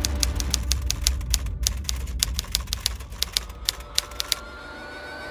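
Typewriter keystroke sound effect: quick, irregular key clicks for about four seconds over a low drone, stopping a little after four seconds in. A thin, slowly rising tone comes in near the end.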